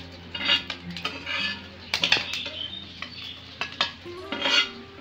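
Spatula scraping fried small fish out of a kadhai and knocking against the pan and a steel plate: about five separate scrapes and clinks.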